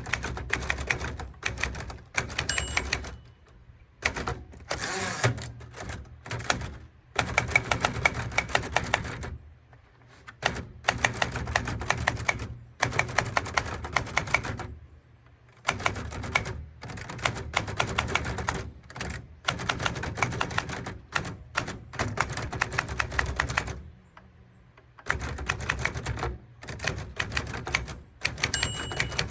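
Manual typewriter typing: rapid bursts of sharp clacking key strikes lasting a few seconds each, broken by brief pauses.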